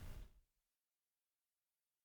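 Near silence: a faint digital hiss after narration ends.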